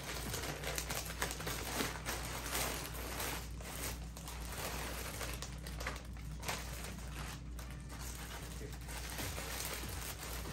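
Packaging rustling and crinkling with small crackles and clicks as clothes are pulled out of a shipping package.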